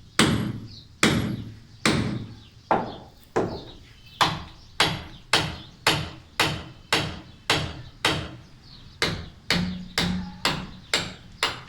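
Hammer striking a chisel to chip away a concrete corner, about twenty sharp metallic blows at a steady pace of just under two a second, each with a brief ring, speeding up slightly near the end.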